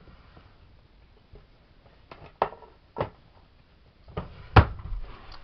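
A few sharp clicks and knocks from objects being handled, with the loudest knock and a low thud about four and a half seconds in.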